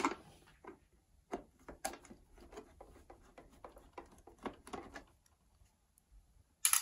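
Screwdriver backing a screw out of a projector's plastic bottom housing: a run of small clicks and scratches for about five seconds, then a louder click near the end.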